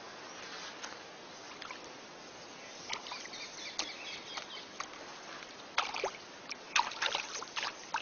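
Steady faint hiss of moving river water at the bank. From about three seconds in come scattered sharp clicks and rustles, most of them in the second half.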